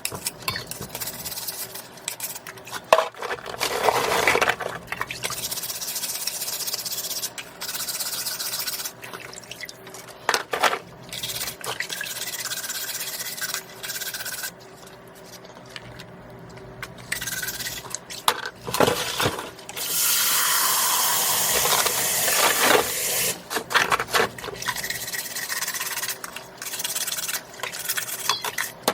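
Scallops being wiped and rubbed clean, with wet rubbing and scraping, small knocks, and a steady rush of water for a few seconds about two-thirds of the way in.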